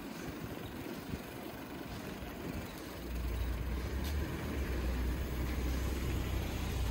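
Ride on a bicycle over a wet road: a steady hiss of the tyres and surroundings, joined about three seconds in by a steady low rumble that makes it louder.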